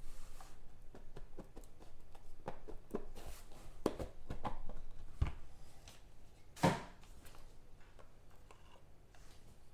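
Hands handling and opening a small box of trading cards: a string of light clicks, taps and rustles, with one sharper knock a little under seven seconds in.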